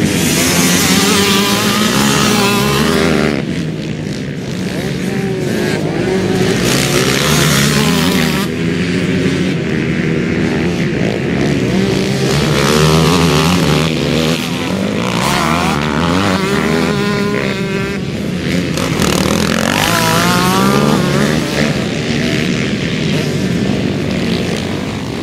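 Several motocross dirt bike engines racing past one after another, revving up and down as the riders work through the corner. The sound swells and fades as each bike passes.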